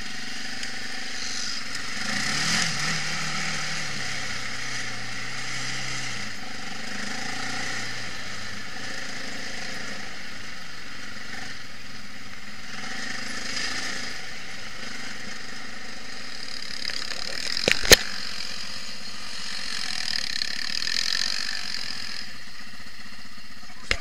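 Quad bike engine running under way on a rough dirt trail, heard from the machine itself, with a steady rushing noise over it. A single sharp knock about eighteen seconds in.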